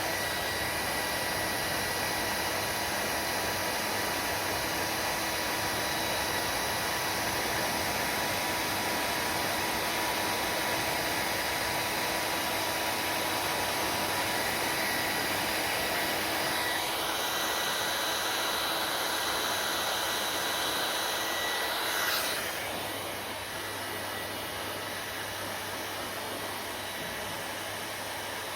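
Hand-held hair dryer blowing steadily with a whining tone. About 22 seconds in there is a click, after which it keeps running a little quieter with a lower hum.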